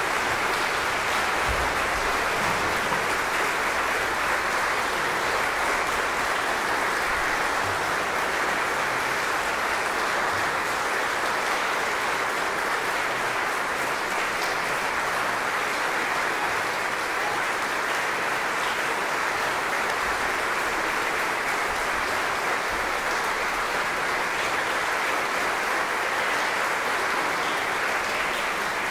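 Concert audience applauding steadily, a dense even clapping with no break.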